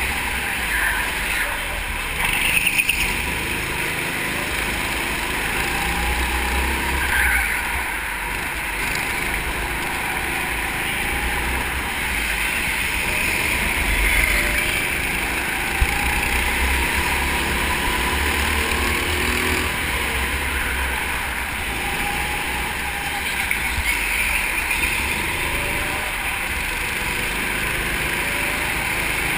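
Onboard sound of a rental go-kart driving hard on an indoor track: the kart's small engine runs continuously, its pitch rising and falling through the corners, with a few short high tyre squeals.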